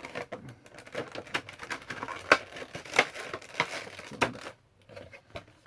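Funko Pop packaging being handled: the cardboard box and its plastic insert crinkling, with a run of sharp clicks and knocks, the loudest about two, three and four seconds in, as the figure is put back into its box.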